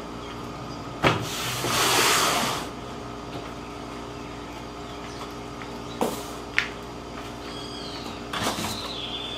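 A cardboard box is set down on a table with a knock and slid across the top, making a brief scraping hiss. A few light clicks follow, then cardboard and plastic packaging rustle near the end, over a steady low hum.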